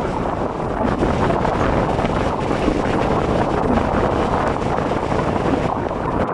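Wind rushing over the microphone of a camera held out of a moving passenger train's window, over the steady running noise of the train.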